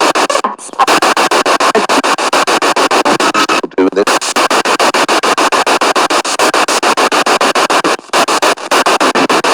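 Spirit box sweeping rapidly through radio stations: loud hissing static chopped into short pieces many times a second, with brief snatches of broadcast sound. There are short dropouts about half a second in, near four seconds and about eight seconds in.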